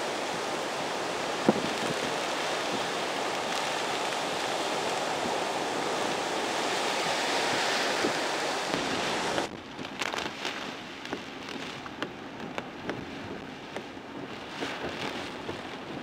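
Heavy surf breaking in a typhoon together with strong wind, a loud, steady wash of noise. About nine and a half seconds in it cuts abruptly to quieter wind and rain, with scattered short taps.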